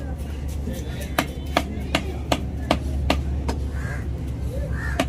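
Large curved knife chopping tuna loin into cubes on a wooden log chopping block: sharp, evenly spaced chops about two to three a second, pausing briefly near the end, over a steady low hum.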